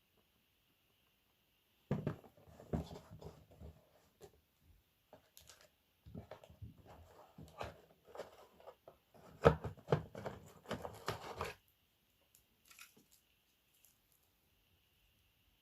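Rustling and clicking handling sounds in two spells, one about two seconds in and a longer one from about six to eleven and a half seconds in, with one sharper click in the middle of it.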